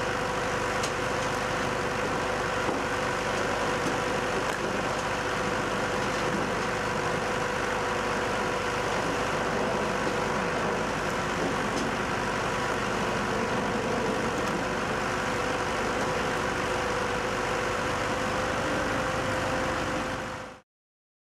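Tractor-driven Tajfun firewood processor running steadily, engine and drive holding one steady hum, with a few faint knocks of wood. The sound fades out quickly near the end.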